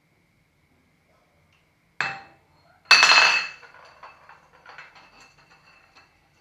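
Glassware knocking and crashing: one sharp knock, then about a second later a louder crash that rings, followed by small clinks and rattles trailing off over a few seconds.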